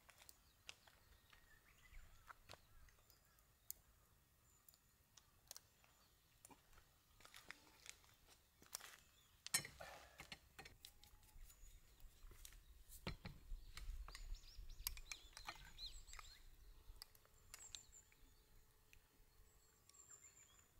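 Near silence in the open air: faint bird chirps, with scattered small clicks of chopsticks against a plate and mug. A low rumble comes and goes in the middle.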